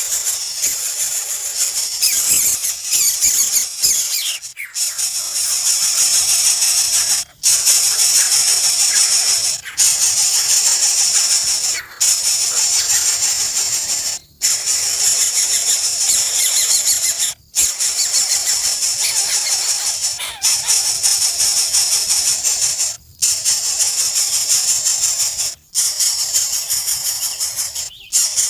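Nestling birds begging for food: a loud, high-pitched chorus of rapid chirping calls, broken by brief pauses every two to three seconds.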